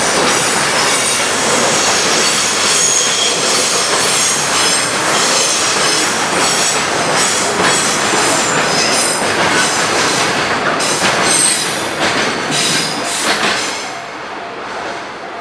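Freight train cars rolling past, steel wheels squealing and clacking over the rail joints. The noise drops away near the end.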